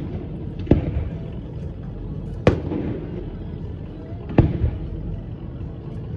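A distant fireworks display: three sharp reports from aerial shells bursting, about two seconds apart, each trailing off in a short echo.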